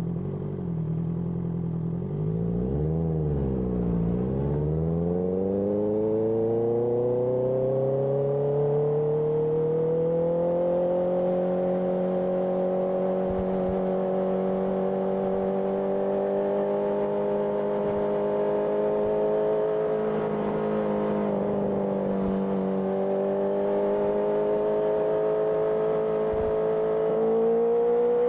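Honda CBR650R inline-four engine through an IXIL IXRACE aftermarket exhaust: it runs at low revs, blips up and down about three seconds in, then pulls steadily up in pitch under acceleration and holds an even cruise. The revs dip briefly a little past twenty seconds and climb again near the end.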